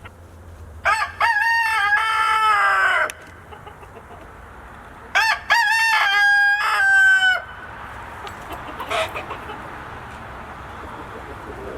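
Rooster crowing twice, each crow about two seconds long, held steady and then falling away at the end.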